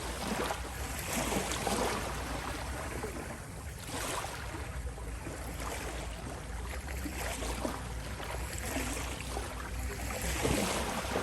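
Ocean waves washing in over a steady low rumble, with surges of surf about a second in, around four seconds and near the end.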